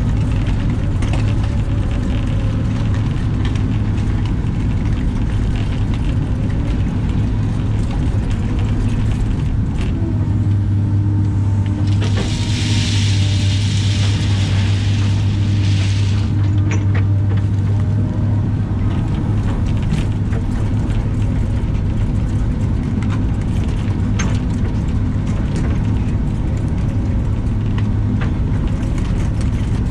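Caterpillar excavator's diesel engine running steadily, heard from inside the cab while the bucket works loose gravel, with occasional light clicks and knocks. A hiss lasts about four seconds near the middle.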